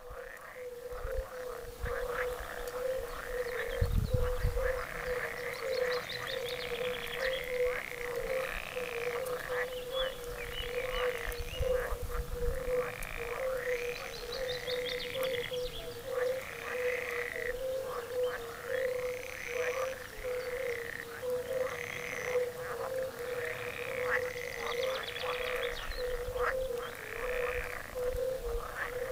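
A chorus of pond frogs: a steady, wavering hum of many calls underneath, with louder croaks repeating every second or two over it. A brief low rumble about four seconds in, and another near twelve seconds.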